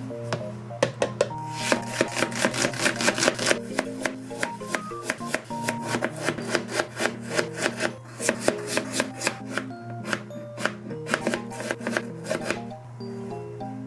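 Kitchen knife rapidly julienning carrot and sweet potato into thin sticks on a cutting board: quick, even knife strikes on the board, several a second. The strikes begin about a second in and stop near the end.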